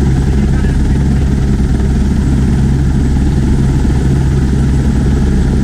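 Helicopter engine and main rotor running steadily on the ground, heard from inside the cabin as a loud, steady low drone.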